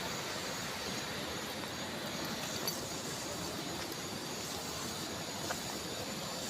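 Steady, even rushing of water in a mountain river, with a few faint clicks over it.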